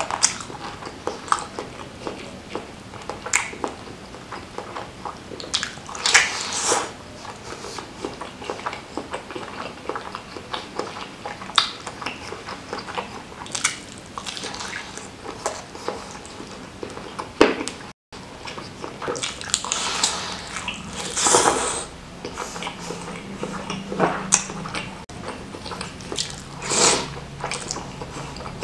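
Close-miked mukbang eating sounds: wet chewing and lip-smacking on soft meatballs (bakso) and rice vermicelli in spicy broth, with a few longer slurps of the noodles.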